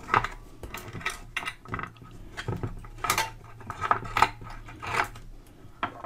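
Split pins and the handle's coil springs being worked loose by hand from the posts of a Bakelite radio case: about ten irregular light metallic clicks and taps.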